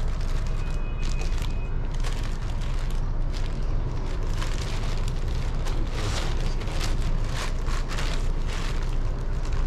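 Plastic and paper packaging crinkling and rustling in bursts as a motorcycle oil filter is unwrapped by hand, over a steady low rumble.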